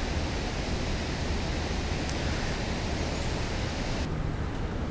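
Steady outdoor background hiss with no distinct events; about four seconds in its highest part drops away abruptly.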